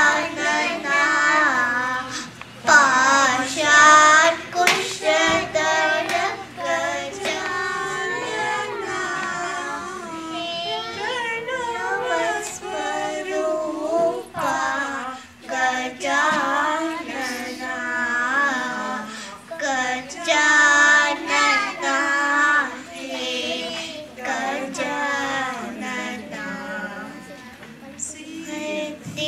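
Two young girls singing a Hindu devotional song together into a microphone, their melody bending and sliding from note to note.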